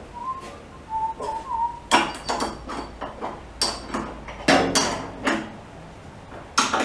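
Irregular knocks and clunks of wood and metal at a woodworking lathe as tools and the workpiece are handled, with a few short high squeaks in the first two seconds.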